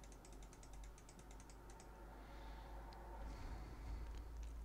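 Faint, quick clicks of a computer mouse button pressed over and over, thick in the first second and a half and then a few scattered ones, over a low steady hum.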